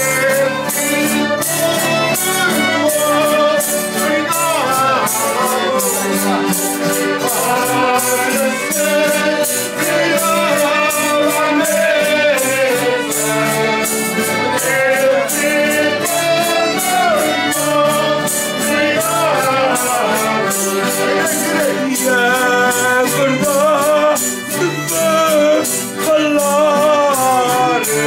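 Group of voices singing a traditional folk song with instrumental accompaniment and a steady, fast beat of struck percussion.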